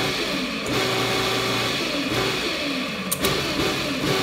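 Food processor motor running and its blade chopping kale through a thick tomato sauce, pulsed to keep the greens chunky; the motor dips briefly about half a second in, then runs on steadily.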